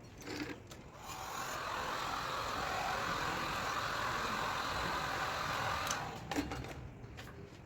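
A small electric tool or blower switched on with a click, running with a steady rushing hiss for about five seconds, then switched off with a click.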